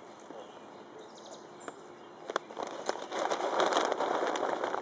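A few sharp clicks, then a loud crackling, crunching rustle close by that starts about halfway in and runs on for the last two seconds.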